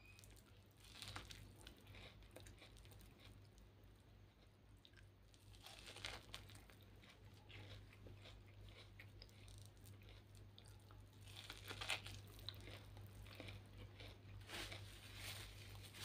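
Chewing and biting boiled corn kernels close to the microphone, in short spells a few seconds apart, over a faint steady low hum.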